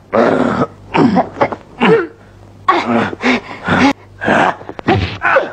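Short fighting shouts and grunts from two people grappling, a series of sharp cries that fall in pitch, over a low steady hum from the old film soundtrack. A sharp hit sound about five seconds in.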